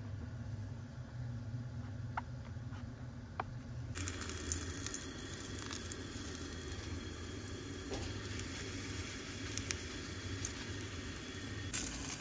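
Portobello mushroom cap sizzling as it fries in a cast-iron skillet on a camp stove; the sizzle starts abruptly about four seconds in. Before it, only a low hum with a couple of faint clicks.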